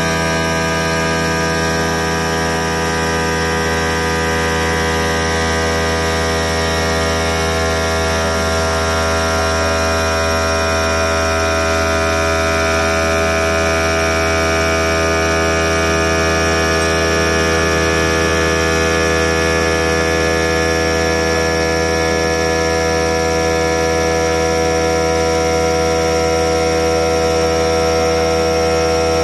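CNC stone machine's spindle running steadily, its water-cooled tool grinding the edge of a round sink cutout in a stone slab: a loud, unchanging hum of many fixed tones over a hiss.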